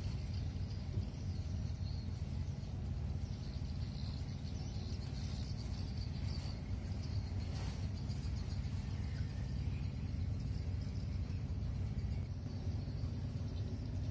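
Steady low mechanical hum of a pump motor running as new engine oil is drawn from a bucket through a hose into the crane's engine during an oil refill.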